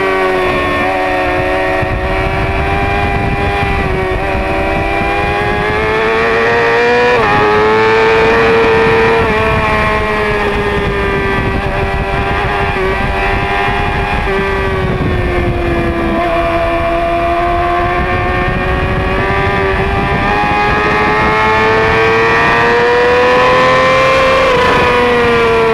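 Yamaha middleweight race bike's engine running hard at high revs, its pitch sinking and climbing with throttle and gear changes, with a sudden jump up in pitch about seven seconds in and a quick drop near the end. Heavy wind rush on the bike-mounted microphone underneath.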